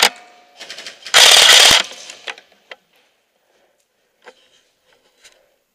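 Airsoft rifle firing a short rapid full-auto burst about a second in, after a brief loud burst right at the start; a few faint clicks follow.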